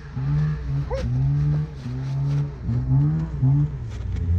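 A vehicle engine running at idle, a steady low rumble, with short swells in pitch that rise and fall.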